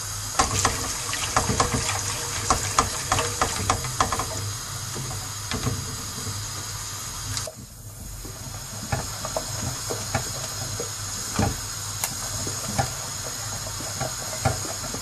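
A whisk stirring a milk pudding mixture in a saucepan, its wires clicking and scraping against the pan in quick irregular strokes, over a steady hiss.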